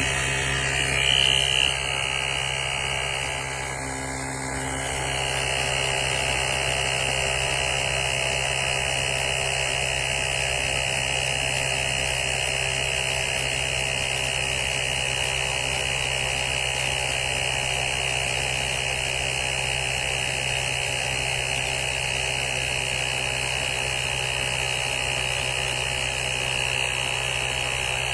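Portable cordless tire inflator's small compressor running, a steady buzzing hum as it pumps air into a tire.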